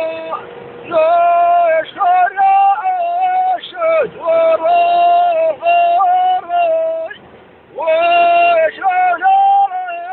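A high singing voice holding long notes with small bends, phrase after phrase with short breaks, and a longer pause about seven seconds in.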